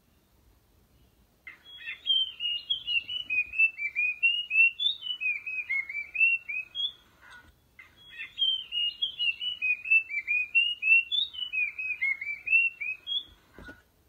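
Striated grassbird song: a long phrase of quick, clear whistled notes, given twice in near-identical form, starting about a second and a half in and again just before eight seconds.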